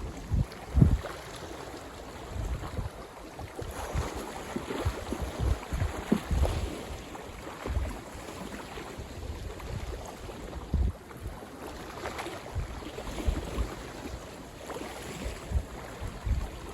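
Strong, gusty wind buffeting the microphone in irregular low thumps, over a steady wash of lake water lapping at the shore.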